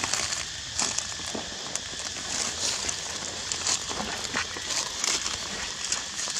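Irregular light crackling and rustling over a steady high hiss.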